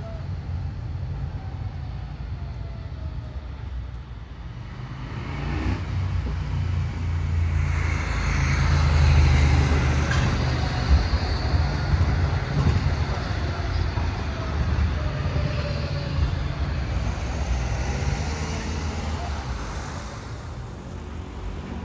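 Steady low rumble of a moving vehicle, swelling louder for a few seconds about halfway through.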